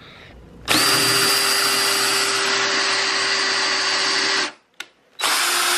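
Cordless drill boring pocket holes through a pocket-hole jig, its motor running at one steady speed for about four seconds, stopping, then starting up again near the end.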